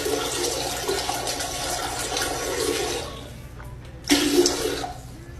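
Water rushing, fading out about three seconds in, then a short second gush a little after four seconds.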